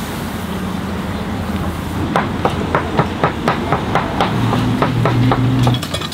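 Steady low machine hum with a run of quick, even knocks, about four a second, starting about two seconds in; the knocks turn into quicker, lighter clicks near the end.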